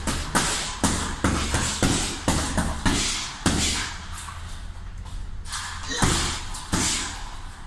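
Punches landing on a hanging heavy bag in quick strings of thuds, two or three a second, with a pause of about two seconds near the middle before a few more hits.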